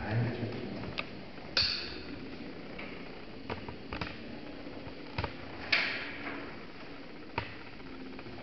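About seven scattered light clicks and taps, two of them with a short scratchy hiss, over a faint steady hum.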